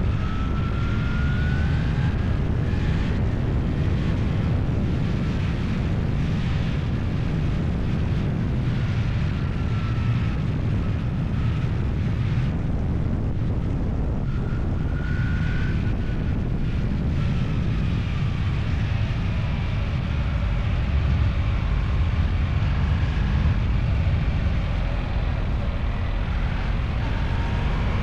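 A vehicle engine running steadily on the move, under a heavy low rumble of wind on the microphone, with faint whines that rise in pitch now and then.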